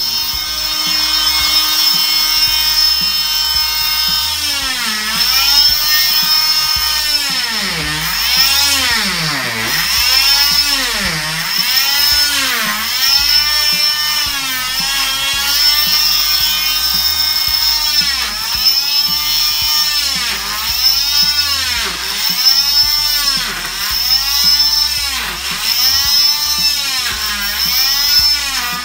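Oscillating cast saw cutting through a fiberglass leg cast with a high motor whine. From about four seconds in, the pitch dips and recovers again and again, every second or two, as the blade is pressed into the cast and eased off.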